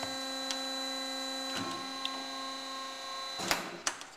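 Behringer HBP 263A automatic horizontal metal-cutting band saw running in its automatic cycle, a steady machine hum with several fixed pitches. A few light clicks come through it, and two louder clunks near the end.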